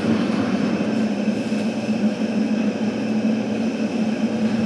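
Steady hum and hiss of a commercial kitchen's ventilation or exhaust fan running at a constant level, with a low drone that does not change.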